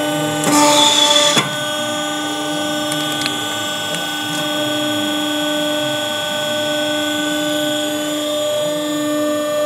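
Hydraulic hose crimping machine running as it crimps a fitting onto a power-steering hose. Its motor and pump give a steady hum with several fixed tones, and there is a louder hissing stretch about half a second in that ends in a sharp click.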